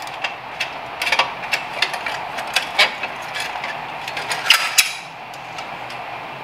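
Irregular metallic clicks and clinks of a hand tool working the exhaust header flange nuts on a Harley-Davidson FXDR 114, over a steady background hiss; the clicking stops about five seconds in.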